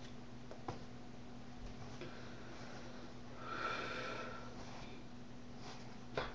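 A quiet room with a steady low hum, a few soft taps, and a breathy nasal sniff lasting about a second, around three and a half seconds in.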